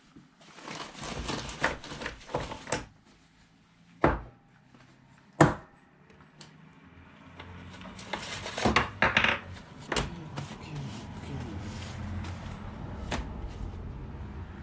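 Clattering and knocking of hard objects being handled, with two sharp knocks about four and five and a half seconds in. From about eight seconds a steady low hum sets in under further clatter.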